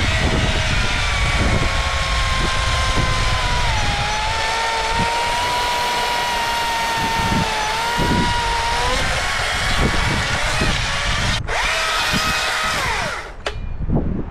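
STIHL MSA 220 C battery chainsaw running flat out with a steady high whine, its pitch sagging twice as the motor takes load in the cut. About eleven seconds in it stops for an instant, runs again briefly, then winds down near the end.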